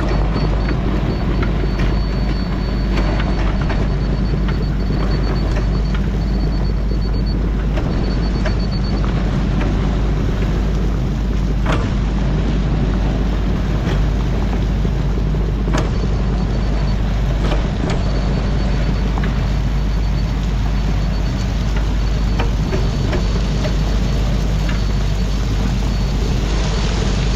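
Skid steer's diesel engine running steadily while grading, with a rapid high beeping that comes and goes for several seconds at a time, like a grade-control receiver, and a few sharp clanks.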